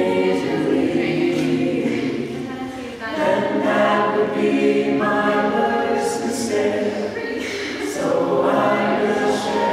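A choir singing unaccompanied in several parts, holding sustained chords, with new phrases starting about three and five seconds in and again near the end.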